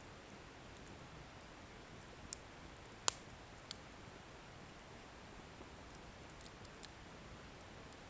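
Wood bonfire burning with a faint steady hiss. Firewood pops sharply a few times, the loudest about three seconds in, followed by a few fainter ticks.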